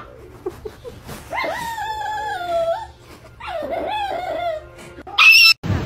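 A puppy howling twice: two drawn-out howls, each falling in pitch, with a short loud burst near the end.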